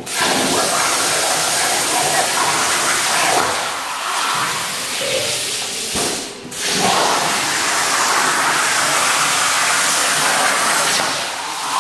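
Torchmate CNC plasma cutter's arc cutting steel plate: a loud, steady hiss that starts abruptly and drops out briefly a little over six seconds in.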